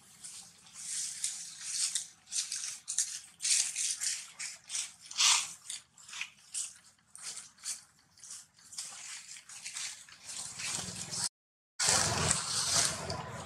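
Dry fallen leaves crackling and rustling in short, irregular bursts as macaques shift about on the leaf litter. About 11 seconds in, the sound cuts out for a moment, then comes back louder.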